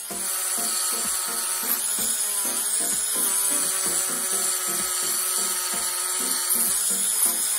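Handheld rotary tool spinning a small cutting disc at high speed, grinding into the slot of a thin 1 mm sheet-metal seppa, with a steady high whine.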